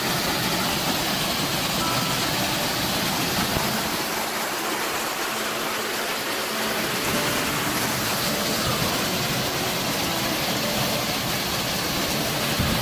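A waterfall pouring over boulders into a rocky pool: a loud, steady rush of falling and splashing water.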